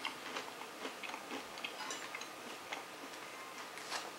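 Faint, irregular light clicks and taps from handling a food container and its contents on a table.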